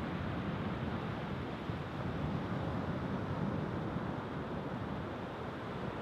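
Sea surf breaking and washing up a beach: a steady rush of waves, with wind.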